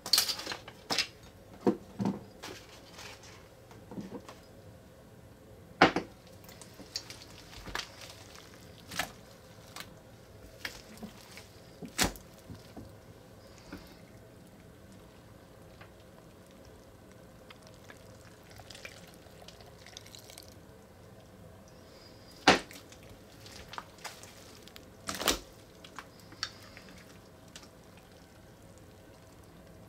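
Clear slime full of Orbeez water beads being patted, stretched and lifted by hand: irregular wet clicks and squishes, a few of them sharper and louder.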